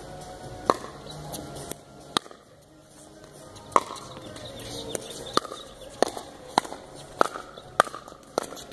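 Pickleball paddles hitting a hard plastic ball during a doubles rally: sharp pops, a few at uneven gaps at first, then a quick exchange at about one hit every half-second in the second half.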